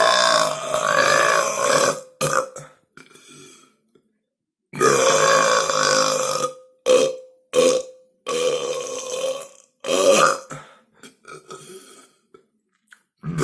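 A string of loud human burps: two long drawn-out belches of about two seconds each and several shorter ones, with brief pauses between them.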